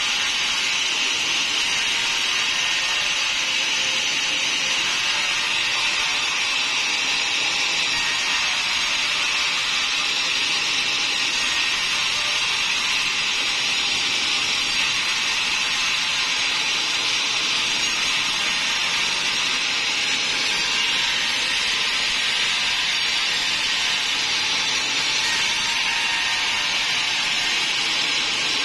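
Large log band saw cutting lengthwise through a teak slab: the blade runs through the wood with a steady, even high-pitched hiss and whine, unbroken throughout.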